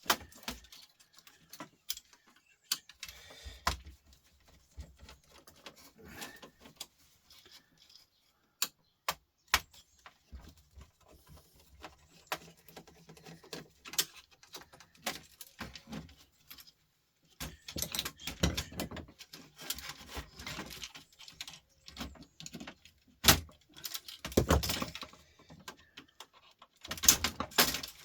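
Small parts and tools being handled while an old record player is taken apart: irregular clicks, clinks and knocks, busier and more rattling in the second half.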